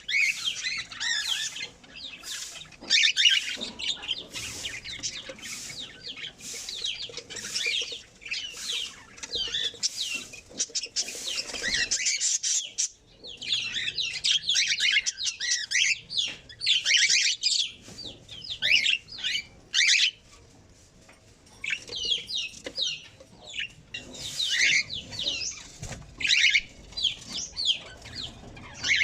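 Several small birds chirping and twittering in quick overlapping calls, with a short lull about twenty seconds in.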